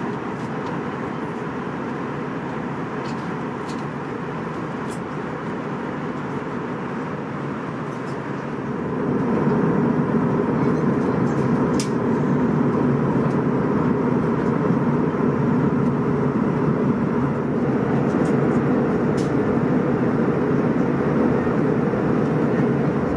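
Steady cabin noise inside an Airbus A321, the rush of engines and air, growing louder about nine seconds in and then holding. A few faint clicks sound over it.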